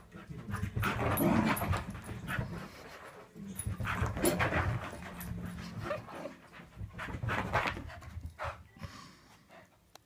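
Cockapoo dog panting in irregular bursts, fading near the end.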